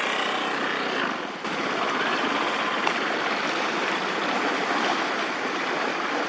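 Steady rush of flowing floodwater, an even hiss with no pitched engine tone, briefly dipping about a second and a half in.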